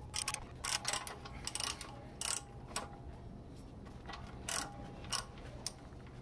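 Ratchet wrench clicking in short, irregular bursts of strokes as it turns a fitting on a transmission lift.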